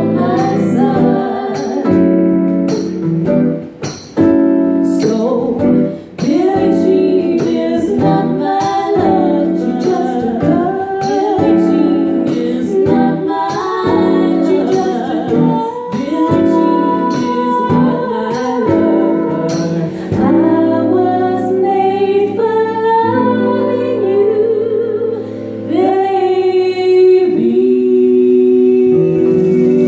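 Two women singing live with a band. Drums keep a steady beat for the first twenty seconds or so, then drop away while the voices hold long notes with vibrato.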